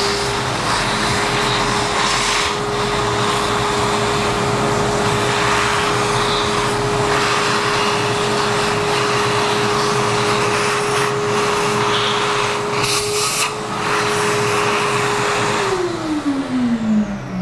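Vacuum cleaner running at a steady pitch, its nozzle sucking old coffee grounds out of a burr grinder's open burr chamber. About sixteen seconds in it is switched off, and the motor winds down with a falling whine.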